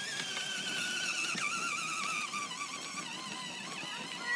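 Electric motor and gearbox of a battery-powered ride-on toy car whining as it drives, a thin high tone that wavers and slowly drops in pitch.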